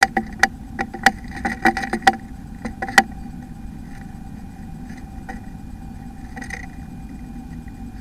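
A blue tit moving inside a wooden nest box: a quick, uneven series of sharp taps and scratches against the box for about three seconds, the loudest near the end of the run. A steady low hum runs underneath.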